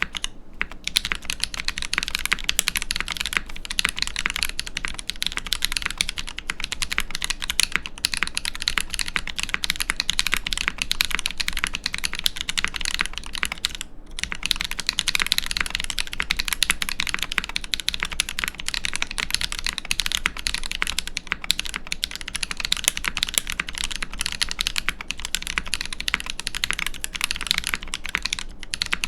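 Continuous fast typing on a mechanical keyboard with lubed Holy Panda tactile switches in a brass-plate Iron165 case without sound dampening: a dense run of keystroke clacks, with a short pause about halfway through.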